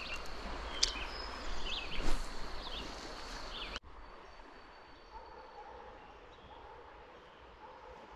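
Outdoor ambience: birds chirping over a steady hiss, with a short click about a second in and a louder bump about two seconds in. About four seconds in the sound cuts abruptly to a quieter stretch with faint bird chirps and warbles.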